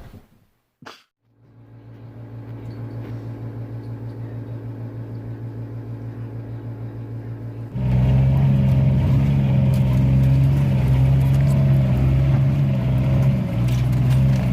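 A vehicle's engine running steadily. It follows a short click and a brief silence, fades in, then becomes much louder about eight seconds in.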